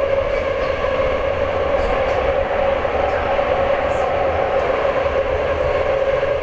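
Metro train running: a steady low rumble with a strong, even whine held at one pitch.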